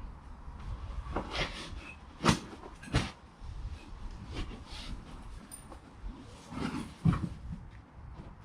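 A boulderer's hands and shoes slapping and scuffing against the rock on a traverse, four sharp contacts with breaths in between.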